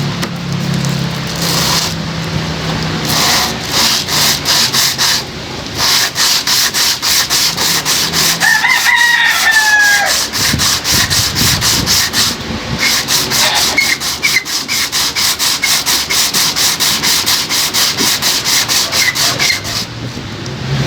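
Hand sanding on a tail light: quick, rhythmic back-and-forth rubbing strokes, several a second. A rooster crows once, about nine seconds in.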